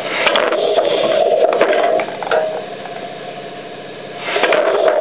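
Homemade pneumatic can crusher working: a steady rush of compressed air through its valves and cylinder, with a few sharp metallic clicks in the first two seconds. The air sound drops away about two seconds in and surges back just before the end.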